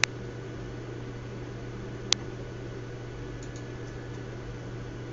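Two sharp single clicks at a computer, one at the start and one about two seconds in, with a couple of faint ticks later, over a steady low hum.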